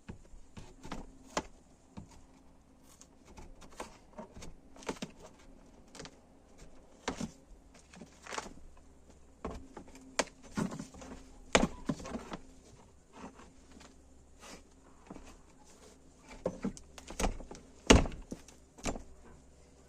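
Irregular knocks, thuds and clunks of renovation work, as things are handled and set down; the loudest thud comes about 18 seconds in.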